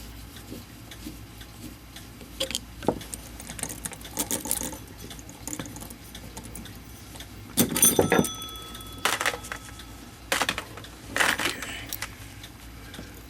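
Small metal tools and brass clock-movement parts clinking and knocking, in scattered sharp clicks; a louder clatter about eight seconds in leaves a brief metallic ring.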